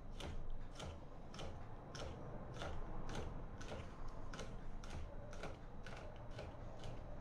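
Kitchen knife sawing back and forth along a piau fish fillet on a wooden chopping block, working the flesh off the skin: a steady run of short scraping strokes, about two or three a second.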